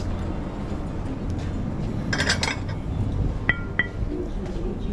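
Crockery and cutlery clinking: a short clatter about two seconds in, then two sharp ringing clinks a third of a second apart, over a steady low hum.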